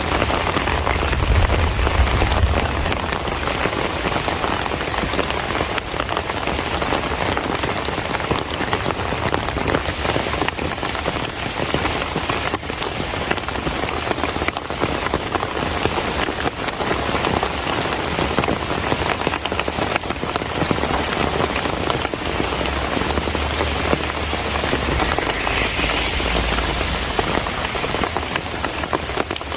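Heavy monsoon rain falling steadily, a dense patter of drops on surfaces. A low rumble sits under it at the start and again near the end.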